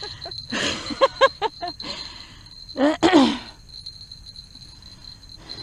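A woman's short grunts, breaths and a drawn-out falling groan as she strains against a big fish on rod and reel, over a steady high-pitched insect buzz.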